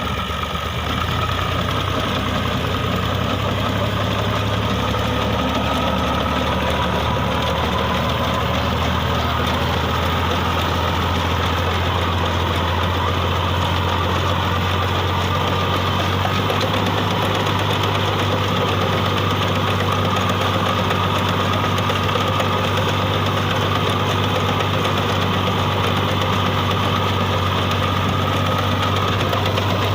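Al-Ghazi tractor's diesel engine running steadily at an even speed.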